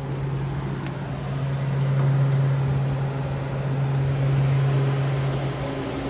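Walk-in cooler evaporator fan motors running with a steady low hum, growing louder over the first two seconds.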